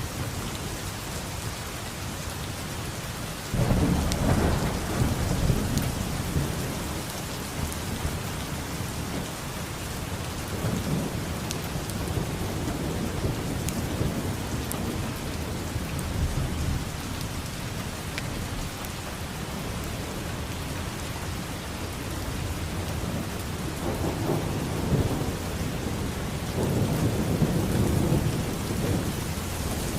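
Steady rain with thunder rumbling: a low rumble breaks in suddenly about three and a half seconds in and slowly fades, and another swells up in the second half.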